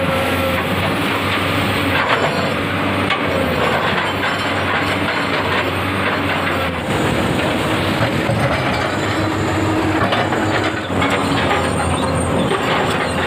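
Excavator diesel engine running under hydraulic load as the grapple works breakwater stones, with irregular knocks and clatters of steel and rock over a steady low hum.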